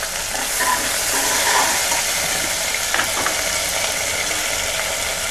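Onions, green chillies and ginger-garlic paste sizzling steadily in hot oil in an aluminium pressure cooker. A metal spoon stirs them and knocks against the pan a few times.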